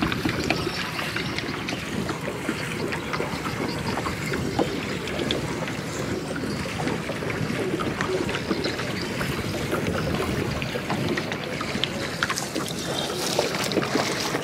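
Steady sloshing and splashing of shallow, muddy floodwater as a push net is shoved through it, with many small crackles.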